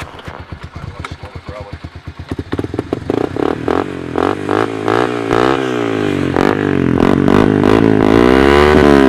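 TRF250 engine running through a newly fitted DG aftermarket muffler. It idles with a rapid, even popping, then from about two and a half seconds in it is revved up and down again and again, with the loudest, highest rev near the end.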